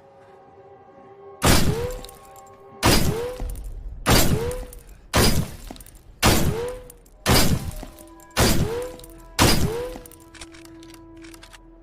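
Benelli M3 Super 90 12-gauge shotgun sound effect: eight loud shots fired about one a second, each with a short echoing tail. Faint steady tones hum underneath.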